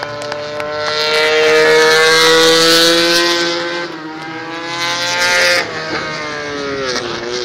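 800cc four-stroke MotoGP racing motorcycle engine running at high revs as the bike passes. The sound swells loudest in the first few seconds, drops sharply about five and a half seconds in, and the engine note falls in pitch near the end.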